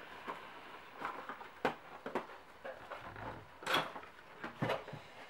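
A small cardboard box being handled and opened: scattered light taps and rustles of cardboard, the loudest about three and a half seconds in.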